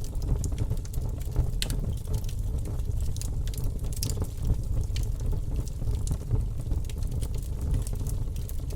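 Wood campfire burning, with a steady low rumble of flame and frequent irregular sharp crackles and pops from the burning wood.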